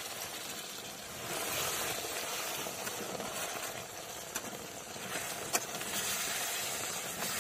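Water poured into a hot iron kadai of fried chicken, hissing and sizzling as it hits the oil and turns to steam, while a ladle stirs the curry, with a couple of sharp clicks of the ladle against the pan in the second half.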